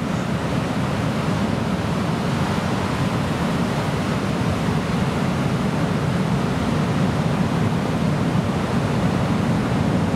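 Ocean surf breaking, a steady rushing noise without pause.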